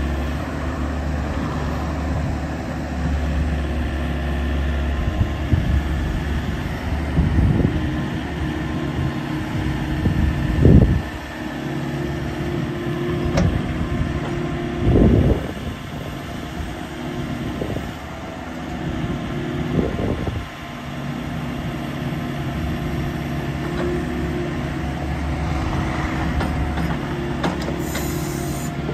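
2016 Volvo ECR88D compact excavator's diesel engine running steadily while the boom, arm and bucket are worked on the hydraulics. The engine note swells loudly several times, briefly, as the hydraulics take load.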